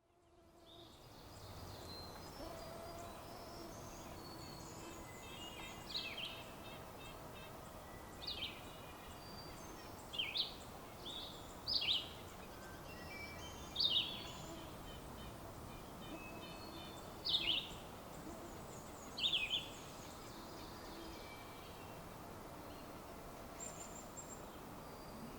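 Woodland songbird chorus of hermit thrush, black-throated green warbler, ovenbird, red-eyed vireo and red-breasted nuthatch. One bird sings loud, short high phrases about every two seconds, seven times from about six seconds in to about twenty. Fainter songs and a few very high notes carry on around it over a steady faint hiss.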